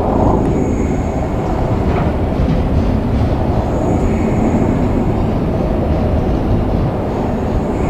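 JR Freight train rolling past, a steady loud rumble of wheels on rail, with a faint high whine from the wheels coming and going.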